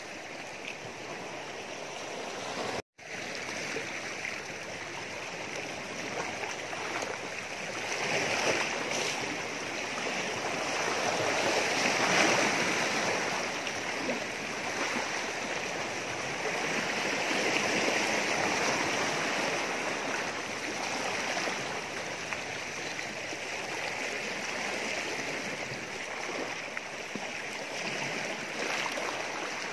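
Sea water washing against a rocky shoreline: a steady rush that swells and eases a couple of times, broken off for an instant about three seconds in.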